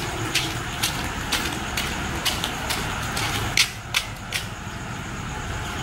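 Footsteps of a child in flip-flops slapping on concrete as he runs up, about two steps a second, over a steady outdoor background hiss.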